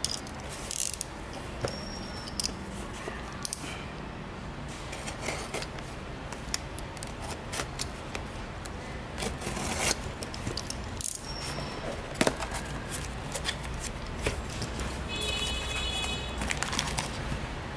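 Irregular clicks, snips and scrapes of small parts and tools being handled during an FPV drone build, over a steady low hum, with a brief high tone near the end.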